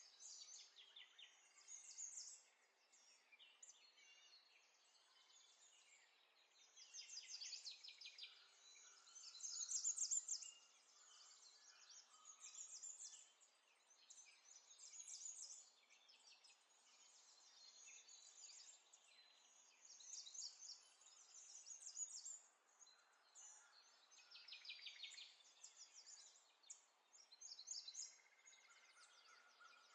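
Faint birds chirping, short bursts of quick high trills repeating every second or two.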